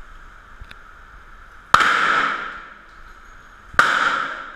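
.44 Magnum revolver fired twice, about two seconds apart, each shot echoing and ringing on through the indoor range. A third shot cracks right at the end.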